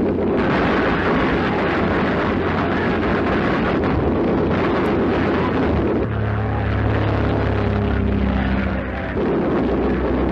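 Biplane engine drone on an old film soundtrack: a dense, noisy drone that settles into a steadier pitched hum about six seconds in, then turns back to the noisy drone some three seconds later.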